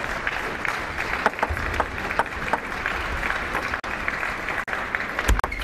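Arena spectators applauding after a point in a table tennis match: a steady clatter of clapping with sharper individual claps standing out throughout.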